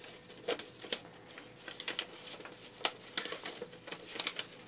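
A printed sheet of letter-size paper being unfolded and folded by hand: irregular crisp rustles and crackles, with one sharper crackle about three seconds in.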